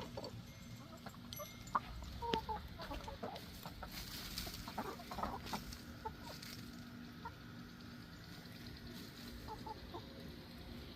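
Backyard hens clucking in scattered short calls, busiest in the first six seconds and thinning out after. Two sharp clicks stand out about two seconds in.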